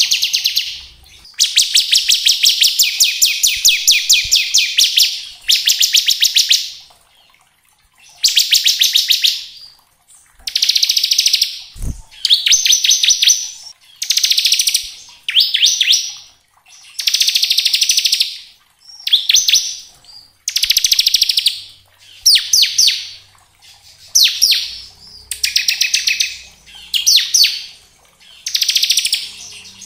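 Bar-winged prinia (ciblek) singing its fast, rattling 'ngebren' trill in repeated bursts, the first ones several seconds long, later ones about a second each with short pauses between. A single soft low knock comes near the middle.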